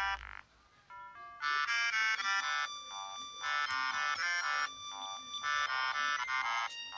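Ringtone melodies from a Siemens S55 mobile phone's small speaker: one tune cuts off just after the start, a brief pause with a few faint short tones follows, and a new tune begins about a second and a half in.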